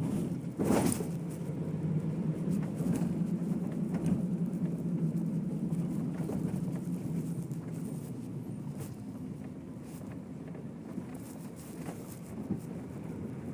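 Steady low rumble of a moving vehicle, with a short loud rush about a second in and a few faint clicks.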